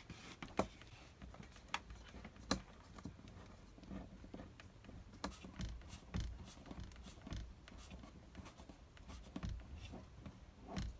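Faint, irregular clicks and scratching of a short-handled hand screwdriver working a screw out of the plastic frame of a caravan window blind, with hands handling the fittings.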